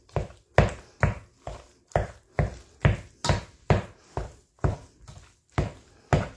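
Farberware nylon pinwheel potato masher pressed repeatedly down through soft boiled potatoes onto the bottom of a pot, a dull thud with each stroke at about two strokes a second.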